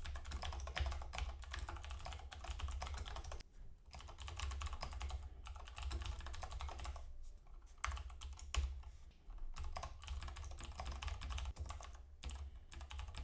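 Typing on a computer keyboard: fast runs of key clicks broken by short pauses every few seconds, over a low steady hum.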